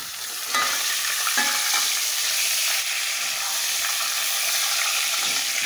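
Pork pieces frying in hot lard with garlic, a steady sizzle that gets louder about half a second in as the meat goes into the fat. A metal spoon scrapes and moves the meat in the pot.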